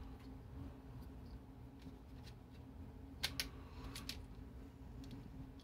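Plastic Lego bricks clicking as they are handled, with a few sharp clicks about three and four seconds in, over a steady low hum.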